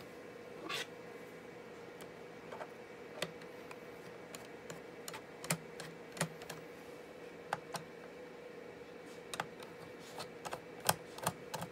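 Scattered light plastic clicks and taps as the laptop's main battery and case are handled and pried at, with a short scrape about a second in. A faint steady hum runs underneath.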